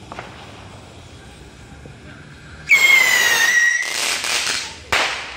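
Whistling rocket firework launched from a glass bottle: a loud whistle, falling slightly in pitch, starts a little under three seconds in, gives way to a hiss as it climbs, and ends in a sharp bang in the air near the end.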